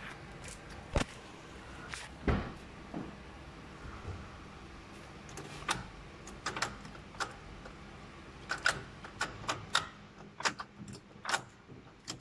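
Scattered clicks and clunks around a 2006 Ford Fiesta's gearbox shift linkage as the car is tested after its broken gear-cable bushing was replaced, with a heavier thump about two seconds in. The clicks come more often in the second half.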